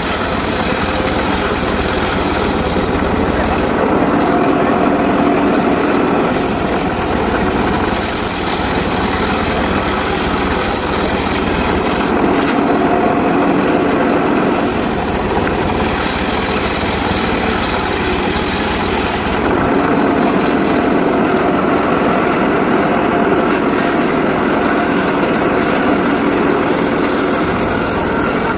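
Homemade circular saw running steadily and cutting sengon laut wood. A higher, hissing cutting sound comes and goes three times as timber is fed through the blade, then drops away about two-thirds of the way in while the saw keeps running.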